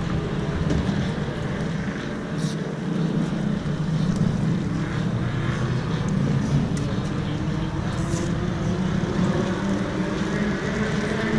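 Briggs & Stratton LO206 four-stroke single-cylinder kart engine idling steadily at low throttle.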